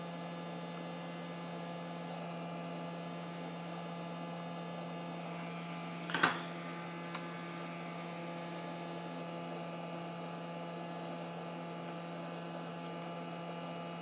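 Steady electrical mains hum with a buzzy stack of even tones, broken by a single sharp click about six seconds in and a faint tick a second later.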